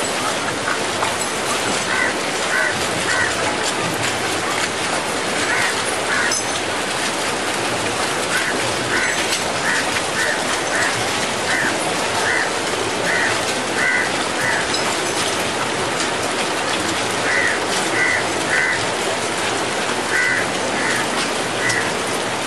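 Steady hiss of rain, with a bird's short calls coming in runs of several notes, about two a second.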